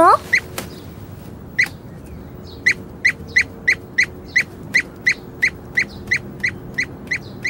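Cartoon squeaky footstep sound effect for a small dog trotting away: short high chirps at an even pace of about three a second.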